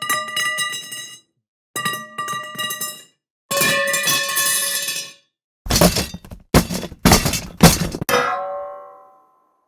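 A run of separate short sound effects with gaps between them: quick metallic hits with a bright ringing tone, a longer ringing jangle, several loud sharp knocks, then a single clang that rings and fades away.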